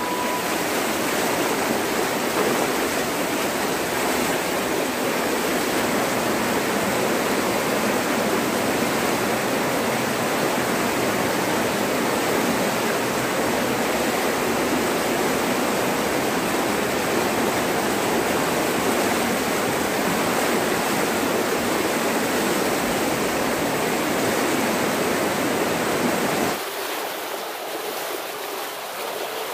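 Shallow stream rushing fast over rocks, a steady noise of water. About three seconds before the end it drops suddenly to a quieter, thinner rush.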